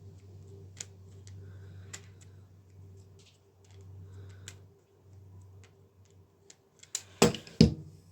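Light mechanical clicks from a bicycle shifter being worked back and forth to free its sticking mechanism with penetrating oil, over a low steady hum. Two loud knocks near the end.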